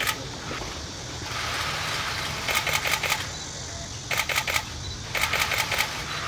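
Press cameras' shutters firing in rapid bursts: three volleys of quick clicks, each lasting about half a second to a second, starting a couple of seconds in.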